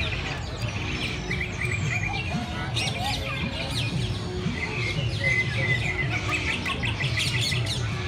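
Many birds chirping and twittering, with short trills repeated throughout, over a steady low rumble.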